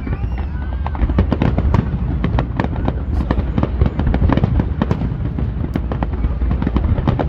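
Aerial fireworks going off in a dense, rapid barrage of bangs and crackles over a continuous low rumble.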